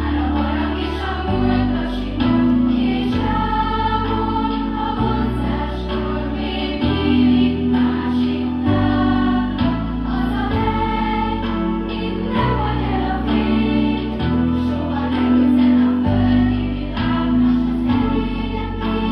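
Large children's choir singing a song on stage, over an instrumental accompaniment whose low bass notes change every second or two.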